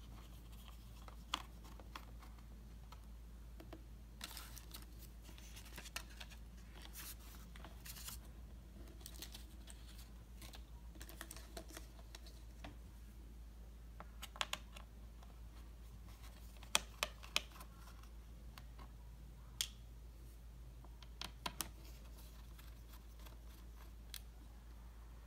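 Faint, scattered clicks, taps and scratches of hands and a small tool handling the underside of a Dell XPS laptop as its bottom panel is being opened, with a few sharper clicks in the second half.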